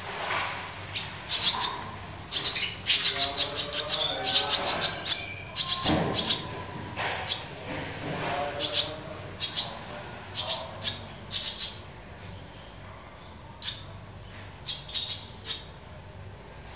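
Barn swallows calling: quick runs of high chirps and twittering, busiest in the first half, then thinning to scattered single chirps.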